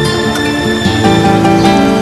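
Instrumental background music with held melodic notes.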